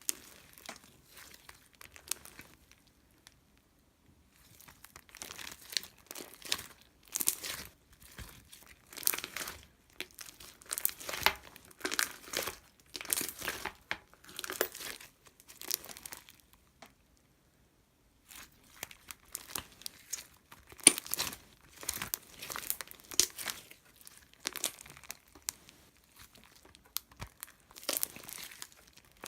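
Crinkling and crumpling in irregular bursts, with two short pauses, one about three seconds in and one about seventeen seconds in.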